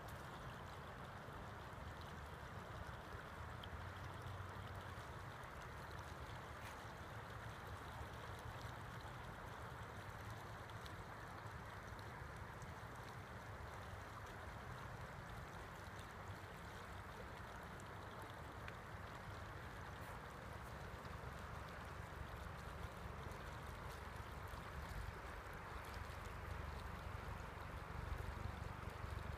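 Steady rush of water flowing at a beaver dam, with a low rumble underneath that grows louder near the end.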